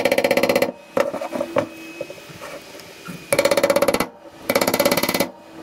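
A flathead screwdriver being hammered under the lip of a pressed-in rubber boot in a brake caliper bracket: three short bursts of rapid metal-on-metal tapping with a ringing tone, and quieter scraping between them.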